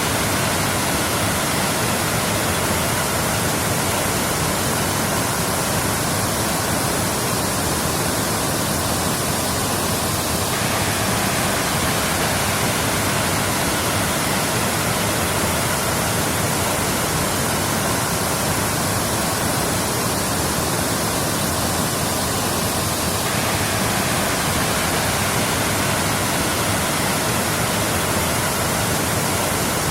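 Waterfall: a steady, even rush of falling water, with the same stretch of sound repeating about every twelve seconds, as in a looped recording.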